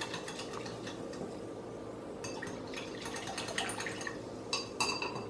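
Fizzy slime mixture being worked in a bowl: faint liquid and small scraping sounds, with a few ringing clinks of a utensil against the bowl near the end.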